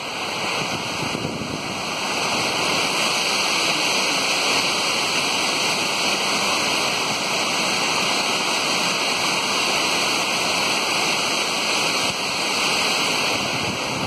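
Monsoon-swollen stream rushing over and around boulders, a steady, even sound of running water.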